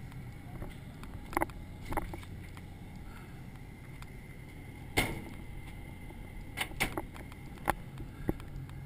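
Sharp metallic knocks and clanks from a ship's steel door being opened and passed through, the loudest about five seconds in, over a steady low hum of shipboard machinery.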